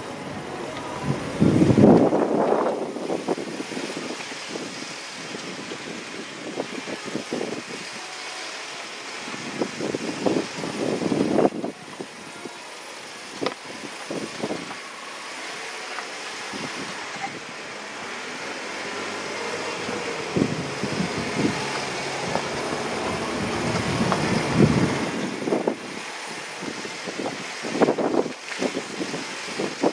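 Jeep engine running at crawling speed over rough rock, with the body and suspension rattling and knocking over the bumps. Louder jolts come about two seconds in, again around ten seconds, and near the end.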